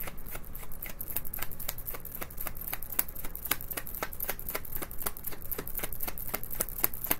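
A tarot deck being shuffled in the hands: a continuous, irregular run of light card snaps, several a second.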